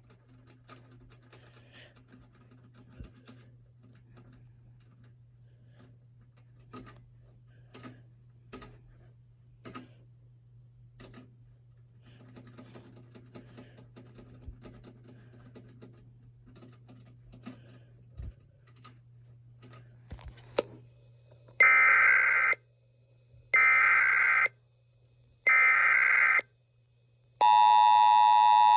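Faint scattered clicks of a computer mouse and keyboard. About 21 seconds in come three loud one-second bursts of an Emergency Alert System SAME header, the digital data tones that open an alert, each followed by a second of silence. Near the end the steady EAS two-tone attention signal starts.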